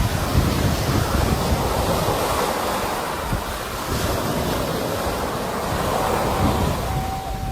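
Sea waves washing continuously, with wind buffeting the microphone in low rumbles. About six seconds in, a thin steady tone comes in and holds.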